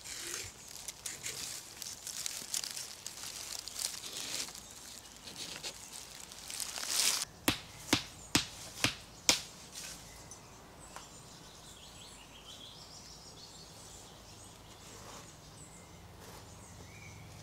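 Rustling and handling in grass, then five sharp knocks about half a second apart: a tent peg being driven into the ground with the back of a small axe. Faint bird chirps follow.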